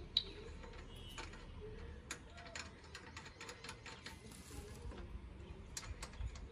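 Metal hand tool working the copper-pipe service valve fittings on a split air conditioner's outdoor unit: a run of small, irregular metallic clicks and ticks, with one sharper click just after the start.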